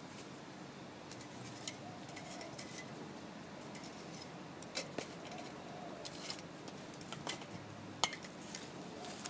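Long metal rod poking and shifting burning wood in a small brick fire pit: scattered sharp clinks and knocks at irregular times, the loudest about eight seconds in.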